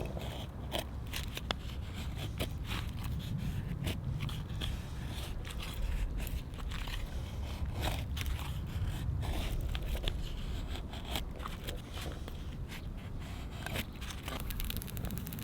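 Wood campfire crackling, with irregular snaps and pops over a steady low rumble.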